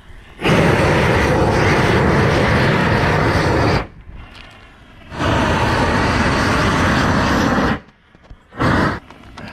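Greenwood handheld propane torch burning with a loud, steady rush of flame, in two long stretches of about three seconds each and a short one near the end, much quieter in between.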